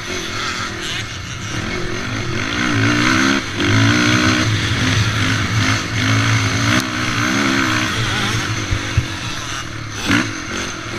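Racing quad's engine heard from on board, revving up and down with the throttle as it is ridden around a dirt motocross track.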